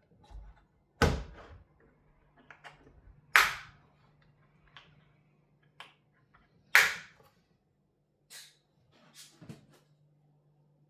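A timing belt kit's box and packaging being handled and opened: three sharp rustling knocks about 1, 3.5 and 7 seconds in, with lighter clicks and handling noises between them.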